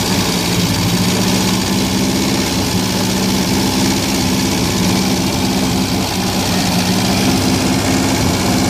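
A 1974 Toyota Corolla's carbureted four-cylinder engine idling steadily at operating temperature.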